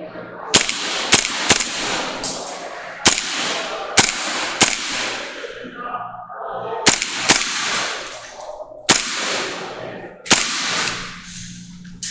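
Airsoft pistol-caliber carbine firing a string of single shots, often in quick pairs, with short pauses between strings: about a dozen sharp shots in all.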